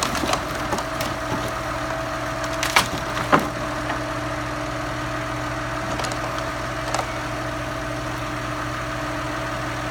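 Larch slab wood clattering and knocking as a tractor-mounted timber crane loads it onto a log trailer, with two sharp knocks about three seconds in. Under it the tractor engine runs steadily with a steady tone.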